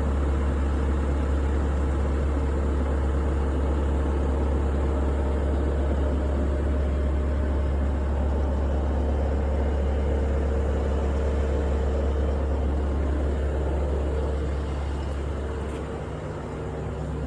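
Steady low mechanical hum with a faint even whine on top, easing off slightly near the end.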